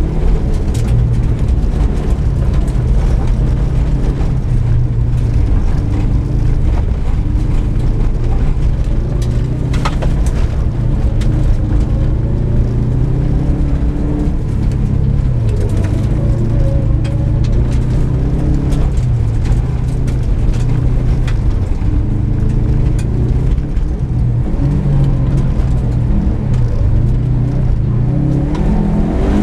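A car's engine heard from inside the cabin while driving on a dirt track, its revs rising and falling as the driver accelerates and backs off. A few sharp knocks come through about a third of the way in.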